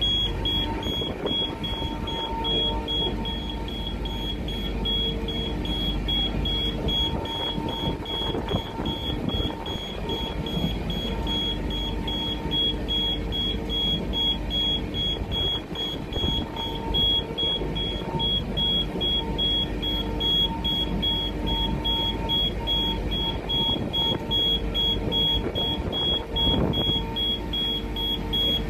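Railway inspection car running at about 125 km/h, heard from inside its cab: a steady rumble of running noise with a constant thin high-pitched whine, and lower humming tones that fade in and out.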